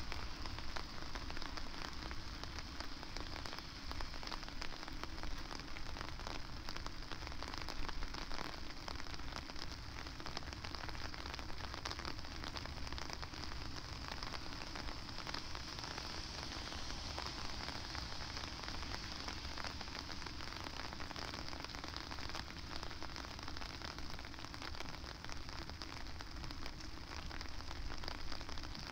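Steady rain falling, a dense pattering of many small drops.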